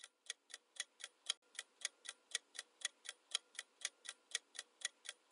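Ticking clock sound effect timing a quiz countdown, quiet and even at about four ticks a second, stopping abruptly near the end.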